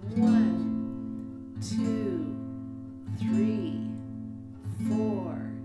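Acoustic guitar strumming an A minor chord: four slow strums about a second and a half apart, each left to ring and fade.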